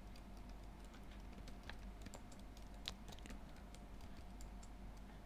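Faint typing on a computer keyboard: irregular keystrokes, with one louder key click about three seconds in.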